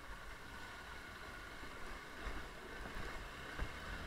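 Hero motorcycle's engine running low and slow as it wades through a shallow rocky stream, with water washing around the wheels. A single knock about three and a half seconds in.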